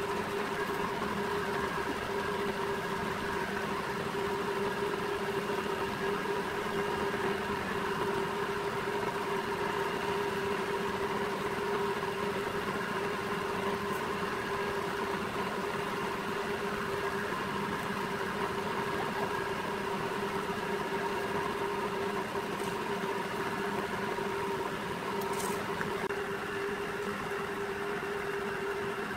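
Electric roller tube bender running steadily, its motor and gear-driven rollers giving a steady hum as they roll a square steel tube into a curve. A couple of faint ticks come through near the middle and toward the end.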